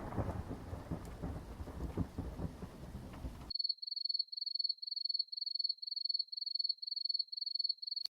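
Thunderstorm sound effect, rumbling thunder with rain, which cuts off abruptly about three and a half seconds in. It is followed by a high, thin pulsing tone repeating about three times a second.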